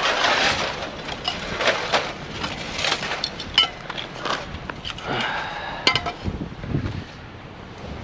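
Pieces of scrap metal being handled and tossed, a busy run of clanks and knocks, several with a short metallic ring.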